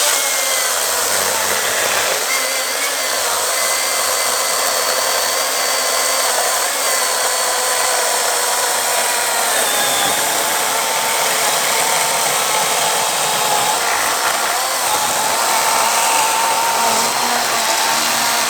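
Milwaukee M18 Fuel cordless brushless chainsaw cutting through an oak log at full speed: a steady high motor whine over the rasp of the chain, holding its speed without binding.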